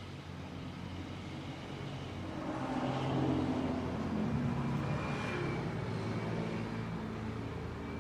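Sears Turn of the Century Deluxe ceiling fan running, its motor giving a steady low hum. A broad rush of noise swells and fades over a few seconds in the middle.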